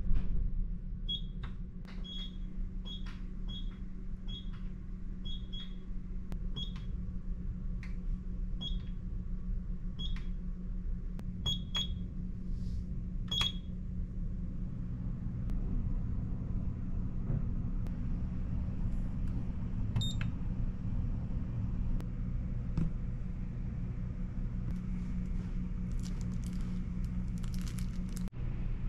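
Hotel-room bedside control panel beeping as its buttons are pressed: about a dozen short high beeps in the first half and one more later, over a steady low hum. Near the end, plastic crinkles as a bagged hair dryer is handled.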